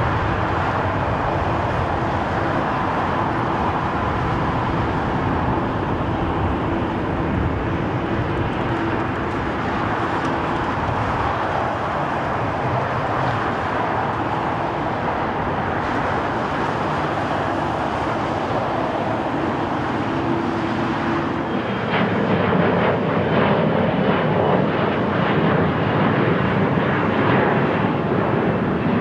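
Jet airliner engines running at low thrust on the ground: a steady rushing noise with faint steady hums through it. About 22 seconds in, the sound turns louder and heavier.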